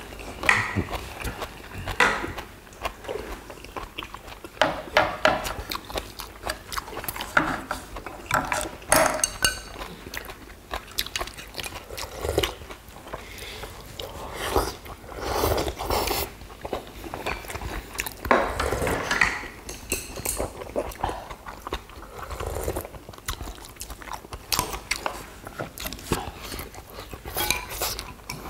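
Close-miked eating by several people: irregular chewing, biting and slurping of noodles and stew broth, with short clicks of chopsticks and spoons against dishes.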